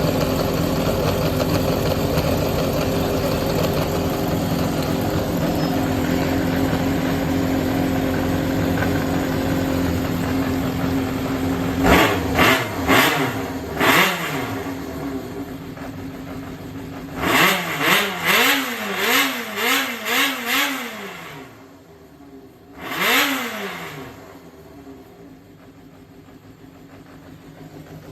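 Yamaha XJR400 (4HM) inline-four engine idling fast and steadily, then revved with quick throttle blips: three near the middle, a quick run of about six a few seconds later and one more, before it settles to a quieter, lower idle. It runs without abnormal noise, a sign of an engine in good condition.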